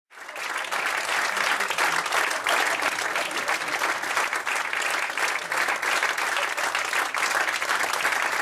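Audience applauding steadily, fading in just after the start.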